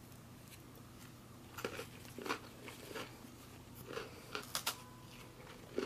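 A person chewing a mouthful of cracker spread with chocolate peanut butter: soft, irregular crunches starting about a second and a half in.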